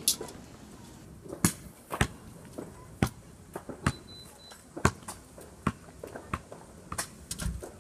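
Fireworks going off: about a dozen sharp, irregular bangs and pops, roughly half a second to a second apart.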